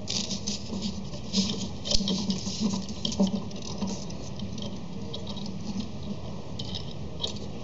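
Gigo plastic drive chain and gears being handled and fitted together: light clicking and rattling of small plastic parts, busiest in the first few seconds and sparser after.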